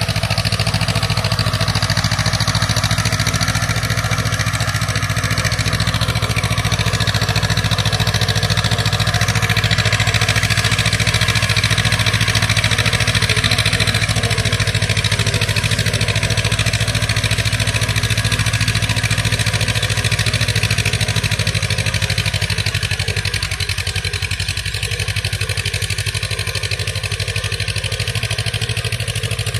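Farm tractor engine running steadily under load as the tractor puddles a flooded rice paddy. It gets a little quieter after about twenty seconds.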